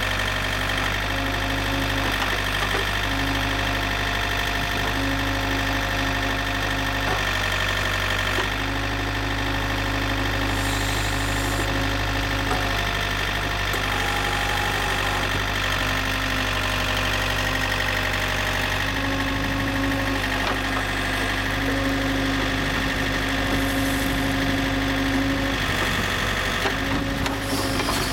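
Yanmar LX450 backhoe's diesel engine running steadily, with a higher tone that comes and goes every few seconds as the machine works.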